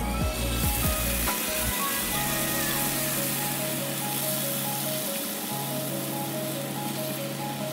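Food sizzling in hot oil in a pan, a steady hiss, under background music.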